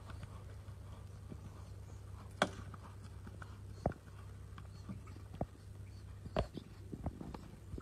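Horse's hooves on a sand arena, heard as a few scattered, irregular knocks rather than an even beat, the sharpest about two and a half seconds in, over a steady low hum.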